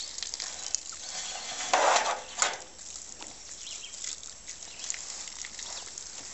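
Garden hose spraying water onto pigs, a steady hissing splash, with a brief louder rush about two seconds in.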